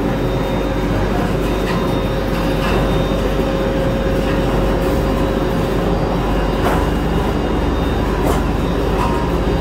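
Olive-oil mill machinery running steadily, including the cleated elevator conveyor carrying olives and leaves up into the plant: a constant mechanical hum with a few light clatters.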